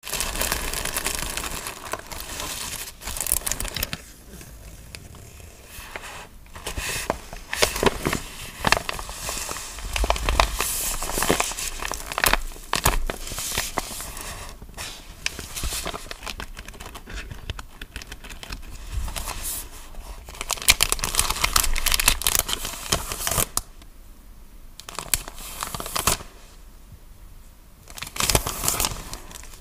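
Paper packaging handled close up: honeycomb paper wrap and tissue paper crinkling, rustling and tearing in short irregular bursts with brief pauses. Near the end, a clear plastic sticker bag crinkles.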